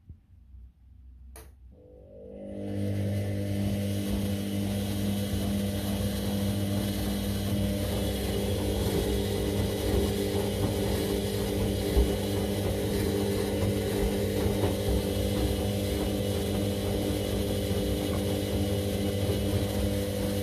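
Candy CS1292D3 front-loading washing machine turning its drum during the first rinse. After a single click, the drum motor starts up about two seconds in and runs with a steady hum while the wet laundry and water slosh and tumble in the drum. The motor stops right at the end.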